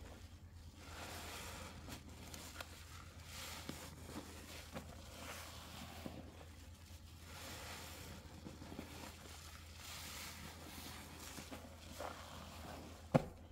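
A soap-laden sponge being squeezed and released in Pine-Sol, giving a wet squelch with crackling suds in slow swells every couple of seconds. A single sharp click near the end.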